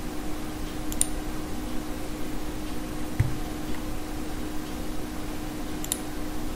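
Steady hum of a computer fan with a faint steady tone in it, broken by faint mouse clicks about a second in and near the end, and one soft low thump about halfway.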